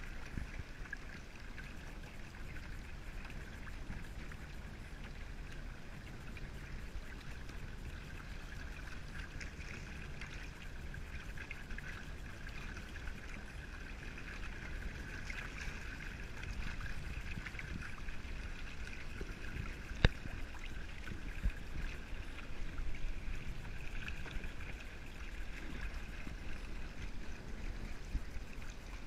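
Water rushing and splashing steadily along the hulls of a wooden strip-planked sailing kayak trimaran under way, over a low rumble. A single sharp knock comes about two-thirds of the way through.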